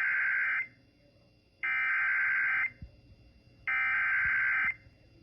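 Emergency Alert System SAME header: three bursts of harsh digital data tones, each about a second long with a second's pause between, the first already under way at the start. The bursts encode the alert's digital header, here for a severe thunderstorm warning, and mark the start of an EAS alert broadcast.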